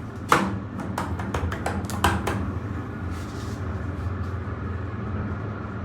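A sharp knock, then a quick run of clicks and knocks over about two seconds, heard inside an elevator cab over a steady low hum.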